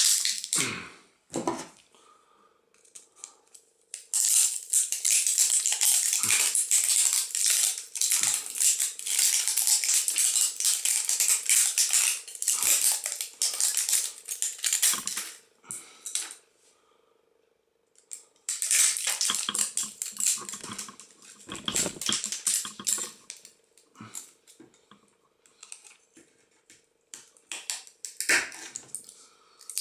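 A punctured phone battery venting: spells of loud hissing with crackling, the longest lasting about twelve seconds and a second one a few seconds later, over a faint steady whistle. The battery is failing after being smashed and is giving off stinking fumes.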